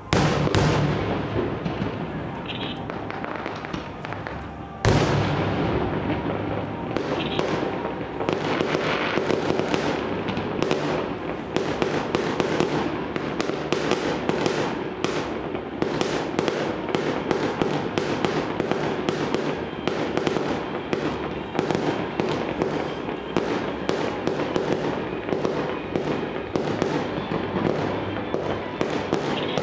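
Fireworks going off: a loud bang at the start and another about five seconds in, then from about seven seconds a dense, rapid barrage of bangs and crackles.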